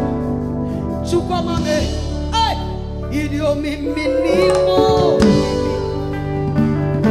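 Live gospel band playing: a woman sings held, wavering notes with vibrato over keyboard and bass guitar accompaniment.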